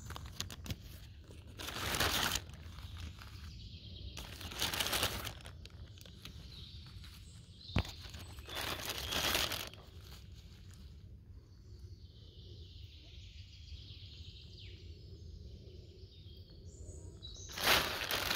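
Rustling and crunching in dry forest leaf litter, in four separate bursts with quieter stretches between, plus one sharp click partway through.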